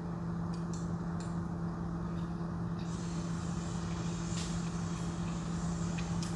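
A steady low hum over an even background noise, with a few faint clicks now and then.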